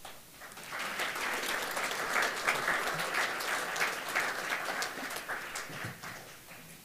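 An audience applauding. The clapping builds within the first second, holds, and dies away near the end.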